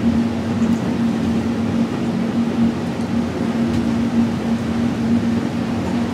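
Cabin running noise of a DCC Doppelmayr Cable Liner people-mover car, a cable-hauled train, travelling along its guideway: a steady hum under even ride noise.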